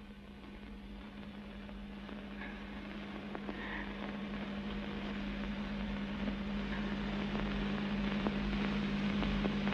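Steady hum and hiss of an old film soundtrack, slowly growing louder, with a few faint clicks.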